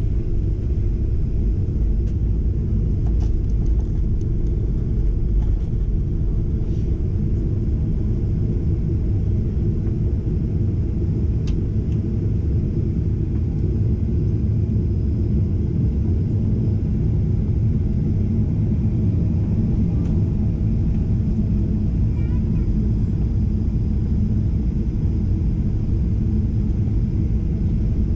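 Steady low rumble inside the cabin of a Ryanair Boeing 737-800, with its CFM56-7B engines running. A few faint clicks sound in the first dozen seconds.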